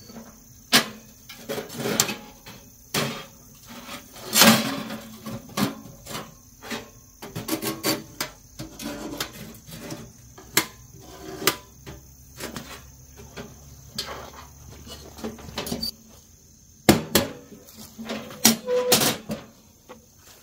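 Winnerwell Nomad Large metal tent wood stove being handled: its fold-out side racks clatter as they are folded and the stove is tipped and moved, giving an irregular run of metal clanks, rattles and knocks. Near the end come a few louder, sharper knocks.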